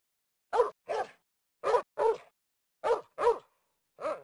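Cat giving short, odd yelping calls, each rising then falling in pitch, in three quick pairs and then a single call near the end.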